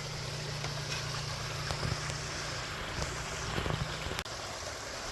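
Steady rushing splash of a garden koi pond's waterfall, with a constant low hum underneath and a few faint clicks.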